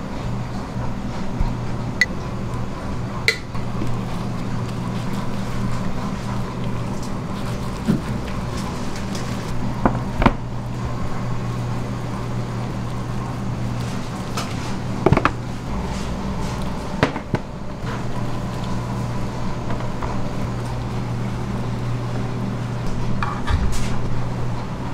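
Steady low hum of kitchen machinery, with occasional light clicks and taps of a metal spoon against a jar, steel containers and a sheet tray as whole-grain mustard and a dark sauce are spooned onto raw beef ribs.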